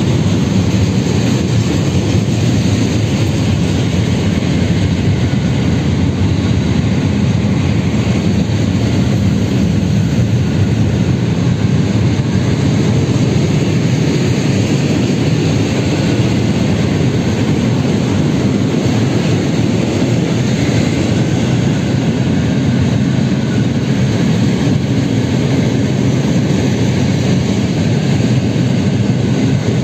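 Heavy freight train of open wagons rolling past, a steady low rumble of wheels on rails.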